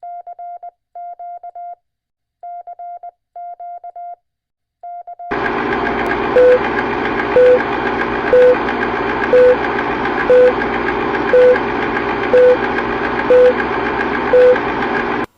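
Groups of short, high electronic beeps in quick runs, like Morse code, for about five seconds. Then a loud, steady hiss of static comes in, with a short lower beep about once a second.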